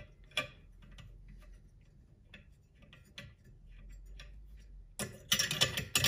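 Faint, scattered small metallic clicks and ticks as a brass oil-burner nozzle is threaded by hand into its holder, then loud rapid clicking starts near the end.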